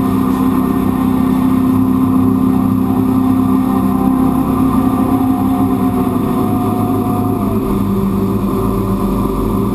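A jet boat's 351 V8 inboard driving its jet pump, running hard at speed with a steady engine note over water noise. The engine pitch drops a little about three-quarters of the way through.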